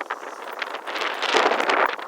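Gusting wind buffeting the microphone, swelling to a strong gust about a second and a half in.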